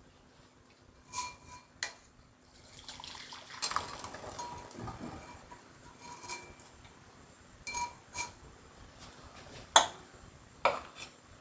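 Kitchen dishes and utensils clinking and knocking as they are handled: a series of light clinks, several with a short metallic ring, and a sharper knock about ten seconds in that is the loudest. A soft noisy stretch runs between about three and five seconds.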